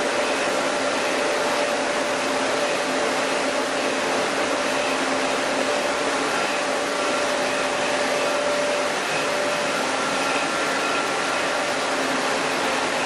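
Chili milling machinery running steadily: an even rushing noise like a large blower or grinder, with faint steady hum tones over it.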